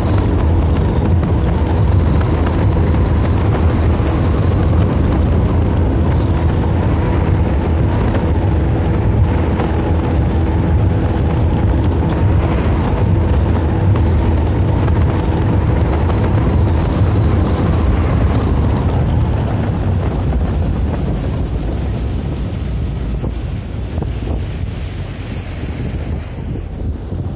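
Wind rumbling steadily on the microphone of a small boat under way, with a faint steady hum underneath that fades out about two thirds of the way through. The rumble eases a little near the end.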